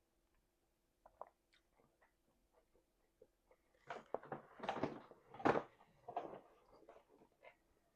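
Close-up messy chewing and mouth noises: scattered small wet clicks at first, then about four seconds in a couple of seconds of louder smacking and chewing before it thins out again.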